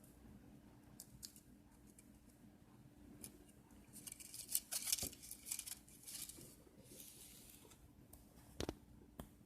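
Crisp snipping and clicking of small hand tools on plastic model parts, bunched about four to six seconds in, with a sharper knock near the end, over a faint steady hum.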